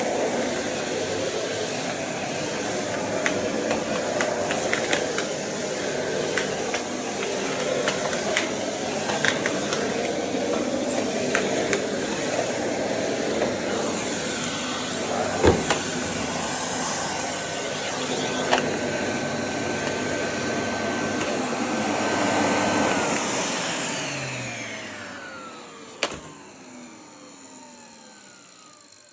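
Miele S224 vacuum cleaner running steadily with scattered clicks and knocks, and a thin whistle joining for several seconds midway. Near the end the motor dies away in a falling whine, with a sharp click as it winds down.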